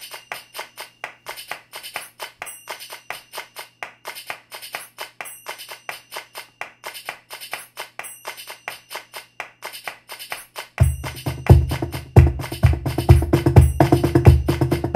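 Roland HandSonic electronic hand-percussion pad played with cajon sounds in a flamenco bulerías rhythm in 12/8: a quick run of light taps, then about eleven seconds in deep bass strokes and loud slaps come in.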